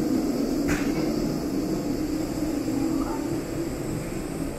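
Steady low mechanical drone of airport machinery heard inside a jet bridge, with a single sharp click a little under a second in.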